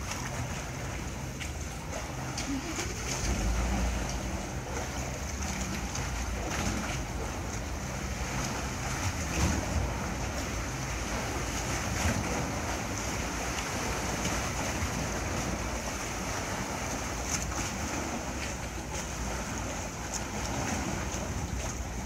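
Wind gusting on the microphone, with water lapping against a moored paddlewheel boat and the dock, over a steady high hiss.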